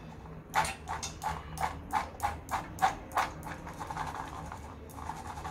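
Wet boiled peanuts shaken in a stainless-steel mesh strainer to drain off the cooking water: a rhythmic rustling swish about three times a second, going softer and more even for the last couple of seconds.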